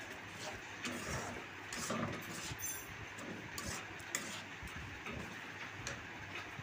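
Metal spatula scraping and clinking against a kadai while boiled moong dal is stirred into the fried spice paste, with scattered light knocks.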